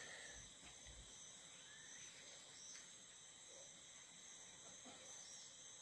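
Near silence with faint, steady high-pitched chirring of insects such as crickets.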